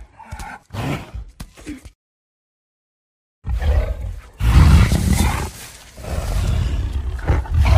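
King Kong's vocalizations from the 2005 film's sound design: a few short vocal bursts, then after a brief silence a long, deep roar that swells, dips around the middle and rises again.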